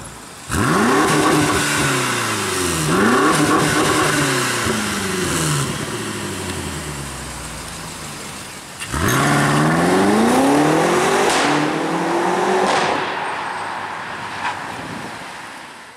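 BMW X6 M's twin-turbo V8 exhaust revving hard, the engine note climbing steeply and falling back twice, then a full-throttle acceleration with the pitch rising through two quick upshifts before fading away.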